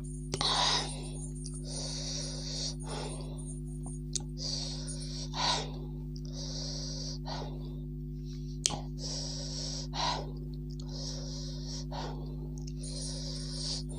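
A woman drawing repeated sharp, hissing breaths in and out through her mouth, as from very spicy food, with a spoon clicking against a plate twice. A steady low electrical hum runs underneath.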